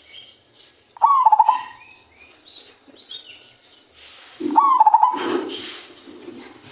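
Male zebra dove cooing: two phrases of rapid, pulsed cooing notes, about a second in and again about four and a half seconds in. Small birds chirp faintly in between, and a rushing noise rises around the second phrase.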